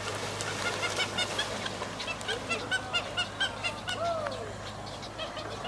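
Many herons calling together: a fast run of short, repeated calls, several a second, with one lower call falling in pitch about four seconds in.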